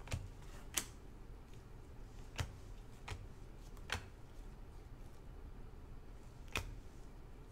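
Trading cards being flipped through and slid against each other by gloved hands, giving a handful of faint, sharp card flicks at irregular intervals over a low steady hum.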